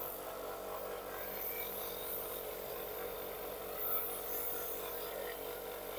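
Gravity-feed compressed-air spray gun hissing steadily as it sprays clear lacquer onto a car fender.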